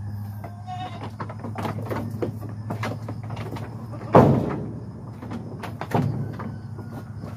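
Knocking and clatter of goats' hooves and bodies against the boards of a wooden pen, with a loud bang about four seconds in and a smaller one about two seconds later.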